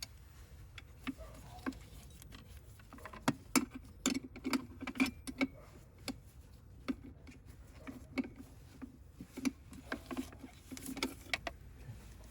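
Irregular clicks and light knocks of hand tools and metal parts being handled, with no engine running.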